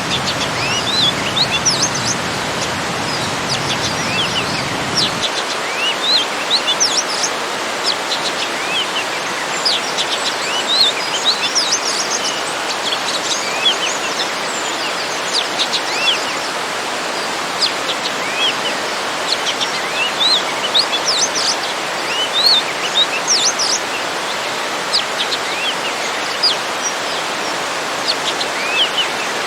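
Small garden waterfall running with a steady rushing hiss, its low rumble dropping away about five seconds in, while many small birds chirp in short, frequent calls throughout.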